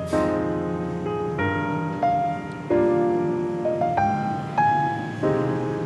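Slow piano music, sustained chords changing every second or so.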